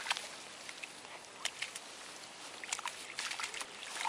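Alaskan Malamute puppies paddling and scuffling in shallow water and long grass: scattered soft splashes and rustles, more of them in the second half.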